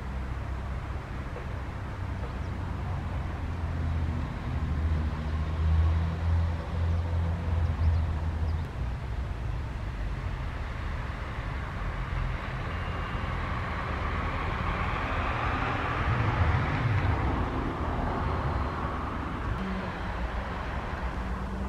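Road traffic passing: a low engine rumble a few seconds in, then tyre noise that swells past the middle and fades again.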